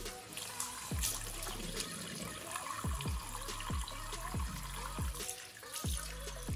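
Tap water running into a ceramic washbasin and splashing over hands being rinsed. Background music with a deep bass beat, its low notes sliding down in pitch every half second or so, plays over the water.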